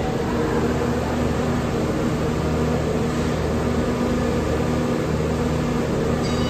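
A New York City subway train standing at the platform, its onboard equipment giving off a steady, multi-toned electrical hum. A high-pitched whine starts near the end.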